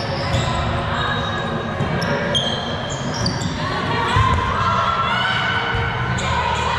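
Indoor volleyball play on a gym court: short high squeaks of sneakers on the floor and ball thumps, with players' voices calling out.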